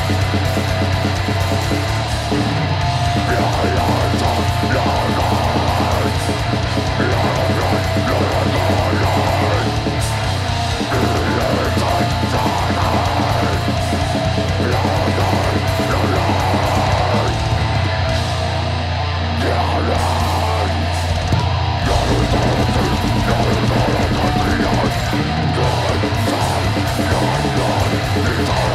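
A heavy metal band playing live and loud: distorted electric guitar, bass and drum kit pounding on without a break.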